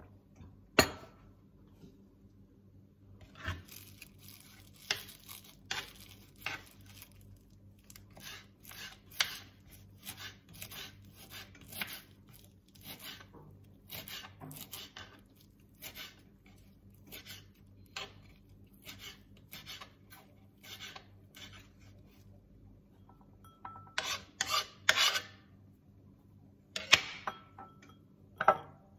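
Kitchen knife chopping leafy green herbs on a wooden cutting board: separate knocks of the blade on the board, roughly one a second and unevenly spaced, with a few louder quick knocks in a cluster near the end.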